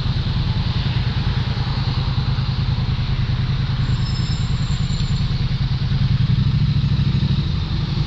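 A vehicle's engine idling steadily, a low rumble of rapid even pulses.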